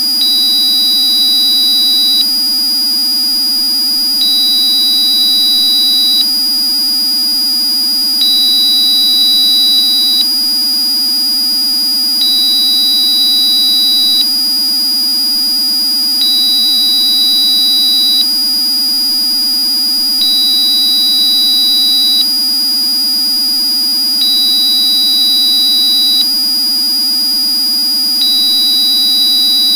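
Electronically generated pure tones for Rife frequency therapy: a steady high-pitched tone at 4870 Hz, with a slightly lower tone beeping on and off, about two seconds on and two seconds off, over a steady low hum.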